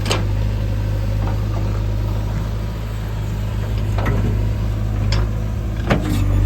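Heavy diesel engine running steadily, with four sharp knocks, one at the start and three in the last couple of seconds.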